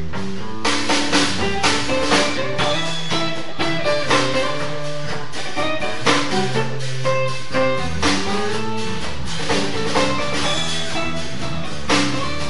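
Live jazz improvisation: electric guitar played over a drum kit with frequent drum and cymbal hits.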